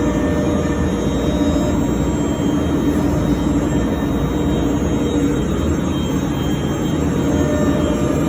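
CNC router running steadily while machining a wooden door jamb head, a constant hum with steady higher tones over the noise of the spindle and cutter in the wood.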